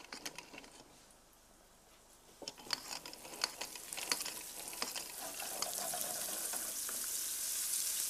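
Floured fish frying in hot oil in a pan: scattered pops about two and a half seconds in, building into a steady sizzle over the second half.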